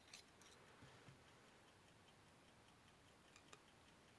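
Near silence: room tone with a faint, regular ticking and a couple of light clicks.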